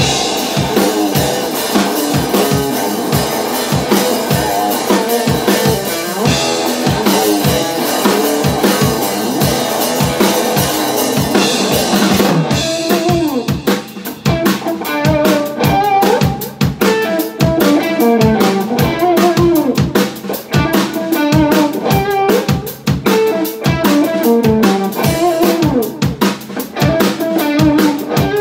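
Instrumental blues rock played live on electric guitar and drum kit. For roughly the first twelve seconds the sound is dense and full; then it thins to a drum groove under single-note guitar lines.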